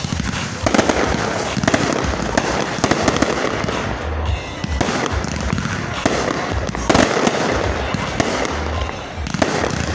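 Fireworks display going off without a break: launch thumps, shell bursts and dense crackling in quick succession.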